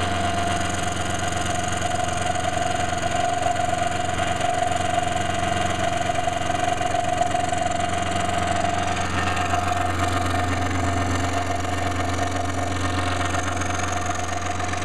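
Power saw running steadily, cutting out the outline of a wooden jigsaw puzzle.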